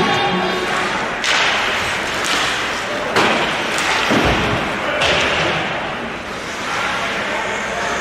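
Live ice hockey play: skates scraping the ice, with sharp stick-and-puck clacks and a deep thump against the boards about four seconds in. Arena music cuts off just after the start as play begins.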